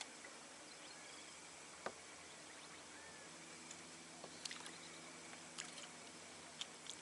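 Near silence: faint open-air background with a few light clicks and soft chirps, and a faint steady low hum that starts about three seconds in.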